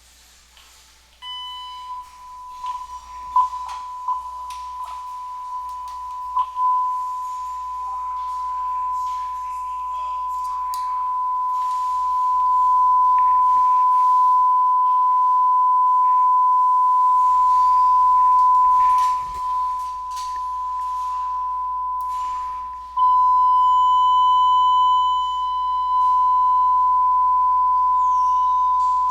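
A steady 1004 Hz telephone test tone from a transmission test set, heard through a test set's monitor speaker. It comes in about a second in and swells louder over the next ten seconds, with a few handling clicks during the first few seconds. It dips briefly about two-thirds through and drops out for a moment before coming back.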